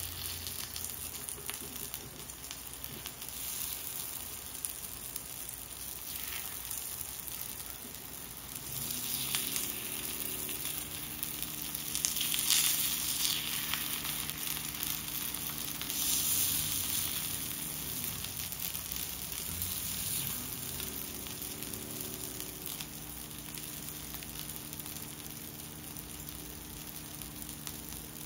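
Kuzhipaniyaram batter sizzling in the oiled wells of a paniyaram pan, a steady frying hiss that swells louder for a few seconds at a time near the middle.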